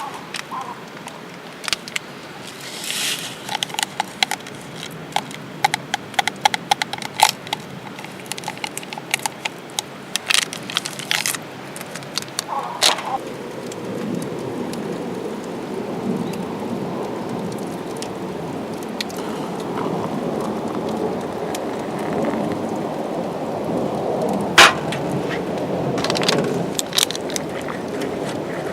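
Wood fire crackling with many sharp irregular pops. About halfway through, a steady low rushing noise comes in and slowly grows louder, with one loud crack near the end.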